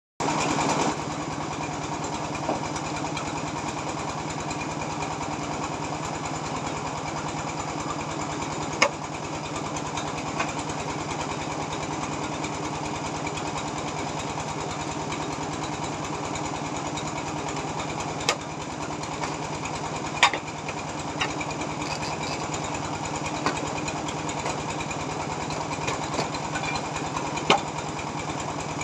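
A machine running steadily in a tile workshop with a constant low hum. Occasional sharp knocks sound over it, a few of them loud.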